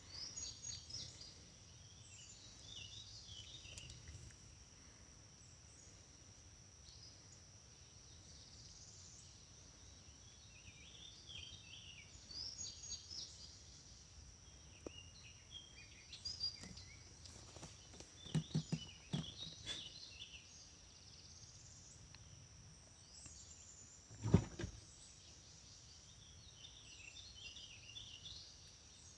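Birds chirping and singing off and on, over a steady high-pitched insect drone. A few soft knocks come about two-thirds of the way in, and one louder thump follows.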